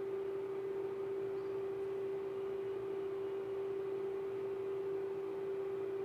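A steady hum holding one unchanging pitch over a faint hiss, from the cooling fan of a home power inverter.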